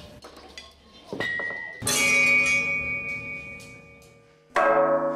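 Two loud strikes on steel anvils, each ringing on with a bright, many-toned ring that fades slowly; the first comes about two seconds in, the second near the end.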